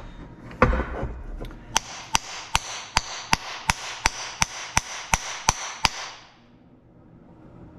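Hammer blows on a cast-aluminum pump motor housing, trying to knock the stuck motor windings out. There is a single knock first, then about a dozen evenly spaced ringing blows, nearly three a second, which stop near the end.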